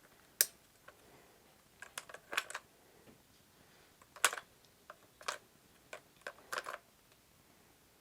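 Scattered small clicks and taps from handling a Canon Rebel G film SLR, with a quick cluster around two seconds in and single clicks near four, five and six and a half seconds.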